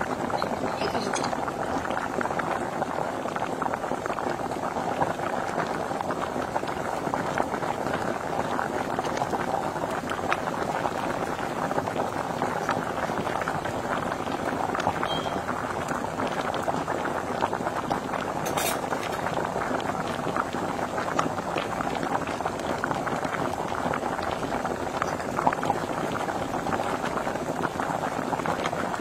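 Oil sizzling and bubbling steadily in a frying pan, a constant dense crackle, with a single sharp click about two-thirds of the way through.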